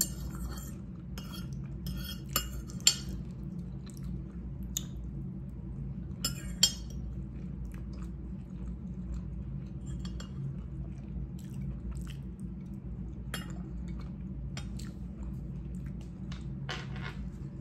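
Metal fork clinking and scraping on a ceramic plate of spaghetti, with close-up chewing between. A few louder clinks come in the first seven seconds.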